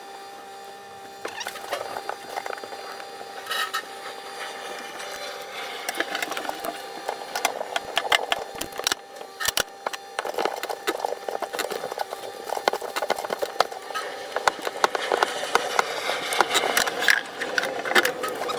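Pipe fittings and hand tools being worked as pipes are connected to a mixer tap: irregular clicks, knocks and scraping, busier in the second half.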